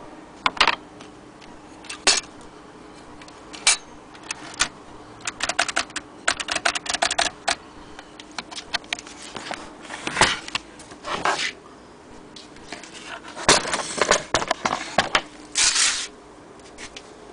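Vintage Imperial Good Companion 3 portable typewriter in use: irregular sharp mechanical clicks and clacks, with quick runs of strokes and a few longer clattering sounds.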